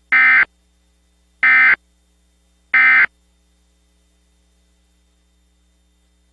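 Emergency Alert System end-of-message code: three short bursts of SAME digital data tones, about a second and a half apart, signalling that the alert is over.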